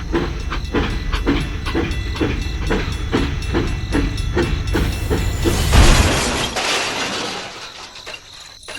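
A small machine chugging in a steady rhythm, about three beats a second, over a low rumble. A rushing, gravelly noise swells about five seconds in and then fades away.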